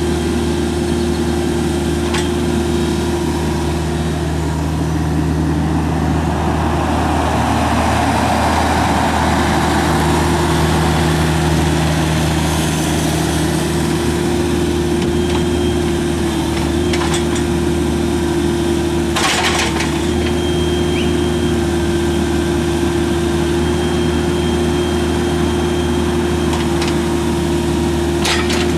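Bobcat mini excavator's diesel engine running steadily while the machine is worked, with a swell of hydraulic or track noise in the first half and a short metallic clatter about two-thirds of the way through.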